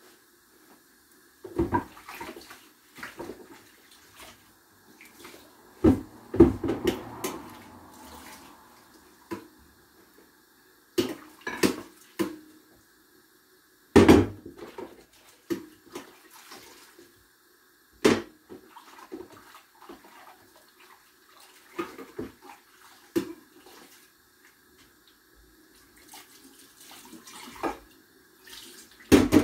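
Washing up at a kitchen sink: water splashing, with dishes and utensils knocking and clattering every few seconds. The loudest knock comes about halfway through.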